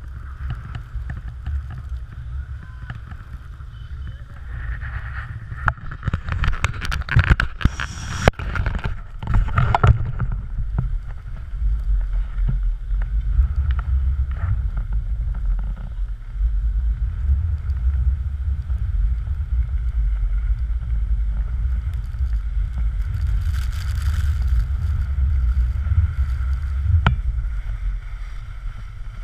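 Wind buffeting a handheld action camera's microphone, a low rumble that grows stronger from about ten seconds in. A cluster of knocks and clicks comes about six to ten seconds in.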